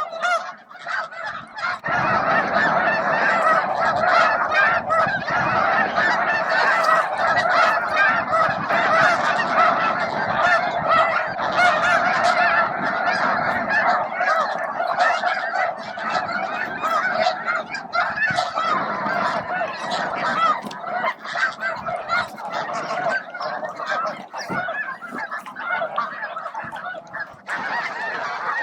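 A large flock of snow geese honking, hundreds of calls overlapping into a dense, continuous chorus that swells about two seconds in.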